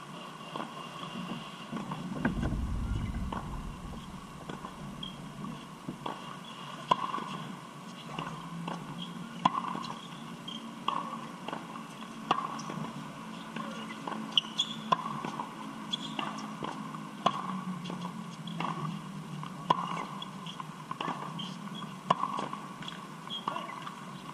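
Tennis rally on a hard court: sharp pops of rackets hitting the ball about every second and a half, starting about seven seconds in, the near player's strokes louder than the far player's, with ball bounces and shoe scuffs between them. A brief low rumble comes about two seconds in.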